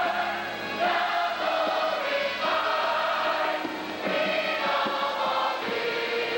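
Large mass choir singing a gospel hymn in long held chords, changing every second or two.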